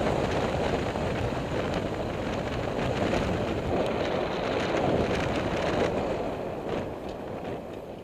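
Wind rushing over the microphone of a vehicle-mounted camera, mixed with road and engine noise from the moving vehicle. The noise fades over the last second or two.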